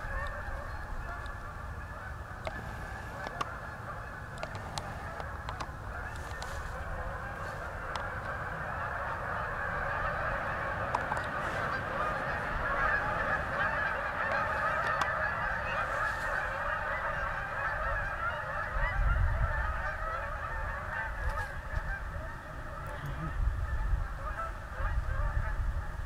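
A large flock of Canada geese honking nonstop, many calls overlapping into a dense chorus that grows louder toward the middle. Low rumbles come in a few times in the second half.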